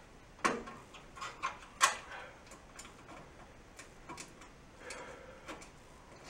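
Screwdriver and small metal parts clicking and tapping against the gas burner assembly as the spark electrode is screwed back down. There are a few sharp clicks in the first two seconds, the loudest near two seconds in, then lighter irregular ticks.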